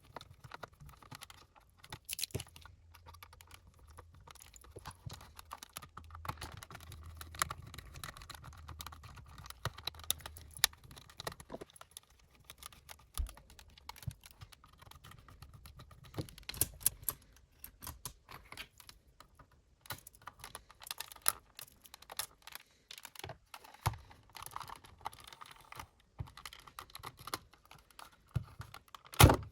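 Irregular small clicks, taps and rattles of a screwdriver and plastic and metal parts being handled while an old cassette player is taken apart, with a faint low hum under them that stops about halfway through. A louder knock comes near the end.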